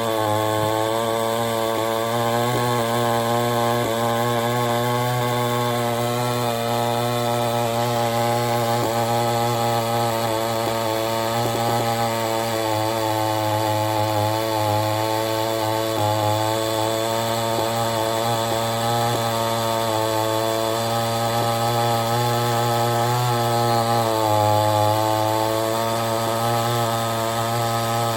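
A 46cc two-stroke gas chainsaw running steadily at high revs as it saws through a log, its pitch wavering slightly under load and dipping briefly about three-quarters of the way through.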